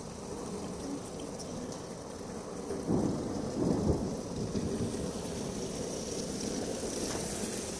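Heavy rain and wind of a violent thunderstorm, a steady rushing noise, with a louder low rumble about three seconds in.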